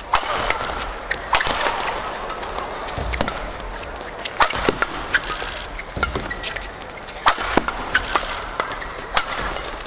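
Fast men's doubles badminton rally: sharp racket strikes on the shuttlecock about once a second, with brief shoe squeaks on the court floor between hits.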